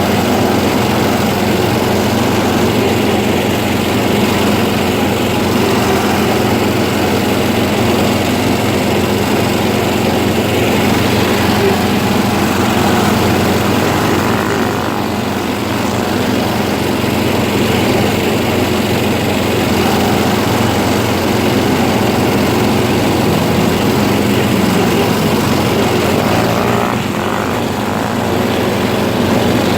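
Small off-road vehicle engine running steadily, with a brief easing near the middle and again near the end.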